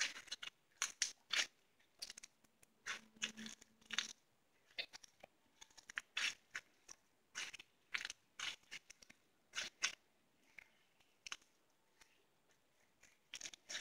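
Crunchy slime full of small beads being squeezed and pressed by hand, giving irregular crackles and pops, a few each second.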